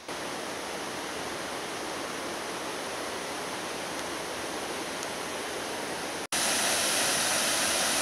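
Waterfall's steady rush of falling water. After an abrupt cut about six seconds in, the rush is louder and hissier.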